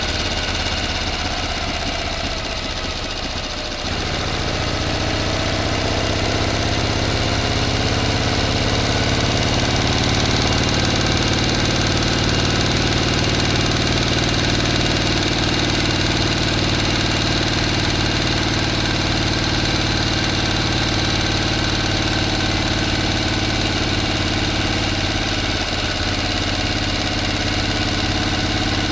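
A motor running steadily. In the first few seconds it sounds rougher and a little quieter. About four seconds in it steps back up, rises slightly in pitch over the next few seconds, then runs evenly.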